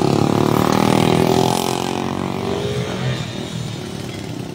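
A motor vehicle's engine running close by, its pitch rising slightly, then fading away over the second half as it moves off.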